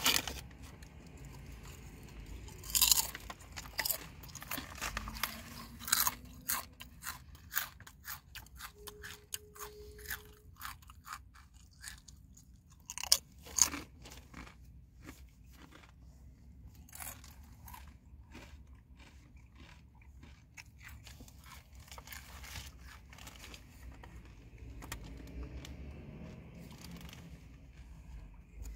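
Close-up crunching and chewing of crunchy chips: many sharp, irregular crunches, loudest about three seconds in and twice around thirteen seconds in, thinning out toward the end.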